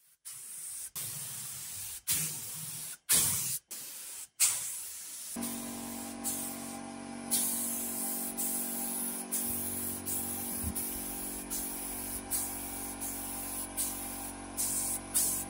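Compressed-air gravity-feed spray gun hissing as it sprays paint, in short bursts at first and then in longer passes as the trigger is pulled and released.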